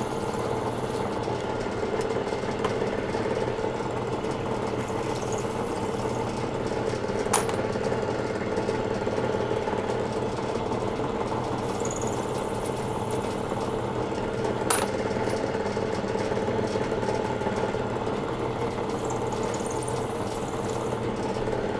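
A milling machine's spindle running steadily, driving an RCBS three-way cutter head that trims and chamfers the mouths of .308 Winchester brass cases held up into it. A sharp click comes twice, about seven seconds apart.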